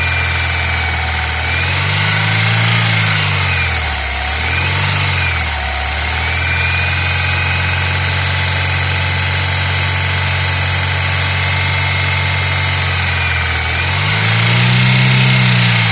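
Daewoo Lanos 1.5 four-cylinder engine idling and briefly revved three times, about two seconds in, near five seconds and near the end, each time rising and falling back. A thin, high whistle rides over the engine and shifts in pitch with the revs; it is a whistle that shows up in a certain range of engine speed.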